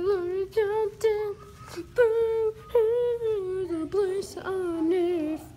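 A high-pitched voice singing a wordless tune in a string of short held, wavering notes, the pitch sliding lower towards the end.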